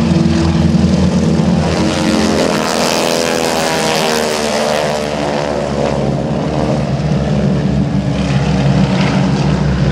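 Four North American T-6 Texans at full power climbing out in formation. Their 600-horsepower nine-cylinder radial engines and propellers run loud, and the sound swells and drops in pitch as they pass about four seconds in. The harsh rasp is the propeller tips going almost supersonic.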